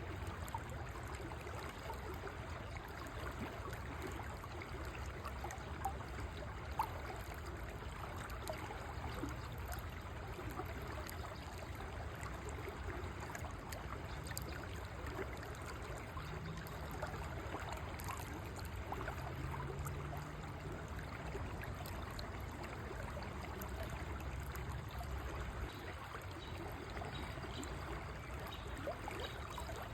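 River water flowing and trickling steadily.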